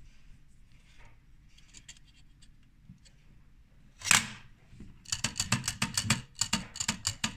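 Bronica camera's waist-level finder hood being worked by hand: faint clicks, then a sharp snap about four seconds in. From about five seconds in comes a fast run of mechanical clicks, about five a second.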